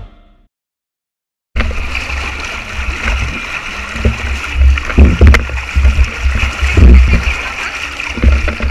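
Water rushing down the start of a water-park tube slide, with wind rumbling on the microphone and a few sharp knocks, starting abruptly about a second and a half in.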